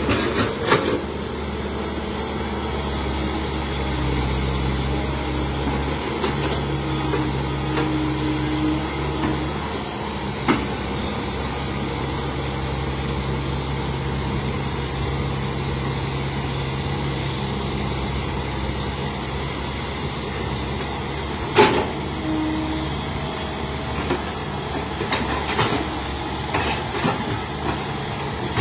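Hitachi EX110 hydraulic excavator's diesel engine running steadily under working load, with a few sharp metallic knocks, the loudest about two-thirds of the way through.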